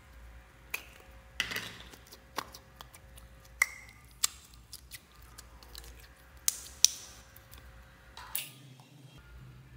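A small clear hard-plastic slime container being handled and opened: a string of sharp clicks and taps, the loudest about three and a half and seven seconds in, with soft wet squishes as the slime is worked out into the tub.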